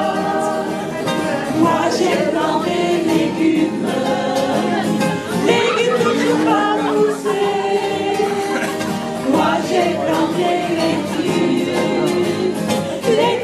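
A group of amateur singers, adults and children, singing a song together.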